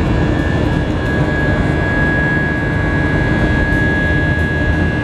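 Jet airliner cabin noise in flight: a steady roar of engines and rushing air heard from inside the cabin, with a thin steady high whine over it.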